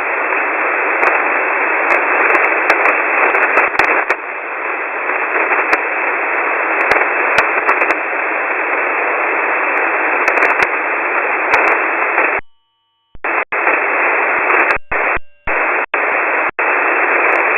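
Shortwave radio static heard through a WebSDR receiver: a steady, band-limited hiss with scattered clicks in the gap between voice transmissions. About twelve seconds in, the hiss cuts out completely, then returns in choppy bursts broken by short silences.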